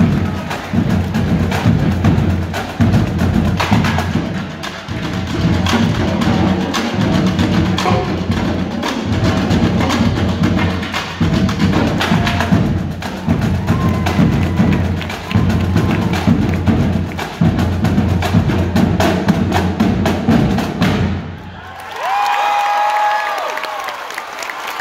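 High school marching drumline of snare, tenor and bass drums playing a dense, loud cadence. It stops about 21 seconds in and gives way to crowd cheering.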